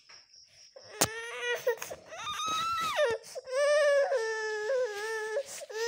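Toddler crying: a sharp click about a second in, then long, high-pitched wailing sobs, two drawn-out wails in the second half.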